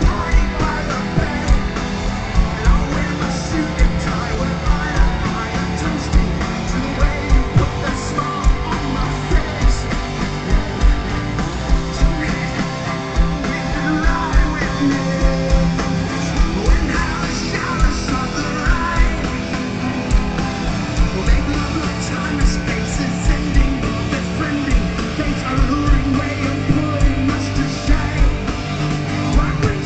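Rock music: guitar over drums keeping a steady beat, with singing in places.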